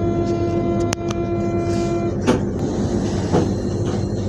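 SNCF Z 20500-series double-deck electric train running slowly over pointwork: a steady whine of several pitches from its electrical equipment, whose higher tones cut out about halfway through, with sharp clacks of the wheels over rail joints and points a few times.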